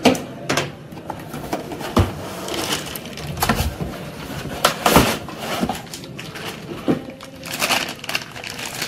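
Cardboard laptop box being handled, scraping and knocking several times. Near the end, the plastic bag around the laptop charger crinkles.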